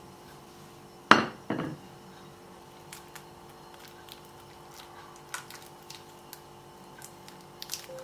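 Two sharp knocks about a second in, then light crinkling of plastic cling wrap and a few small snips as kitchen scissors cut the wrap off a cucumber on a wooden cutting board.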